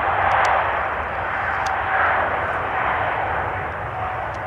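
Jet airliner engines passing: a steady rush of engine noise with a faint whine, easing slightly toward the end.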